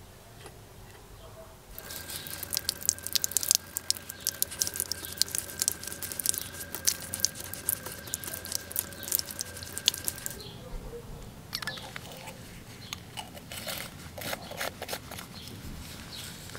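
Water running from a tap over an item being rubbed and squeezed in rubber-gloved hands, with many small crackles and a faint steady whistle, starting about two seconds in. The water stops about ten seconds in, and scattered crinkling and handling clicks follow.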